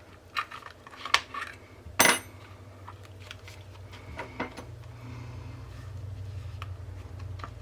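Small sharp clicks and scrapes of a metal micro spatula and a wire staple being worked out of a saddle-stitched zine's spine. The loudest click comes about two seconds in, and a low rumble builds in the last couple of seconds.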